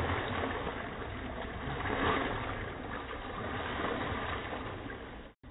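Pool water sloshing and splashing as a swimmer moves underwater, with a steady low rumble beneath it; it cuts off abruptly near the end.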